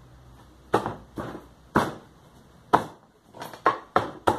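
Bamboo slats knocking together in a string of sharp, irregular wooden knocks as the slotted centre divider is pushed and tapped into its notches in the bamboo frame. There are about eight knocks, coming closer together toward the end.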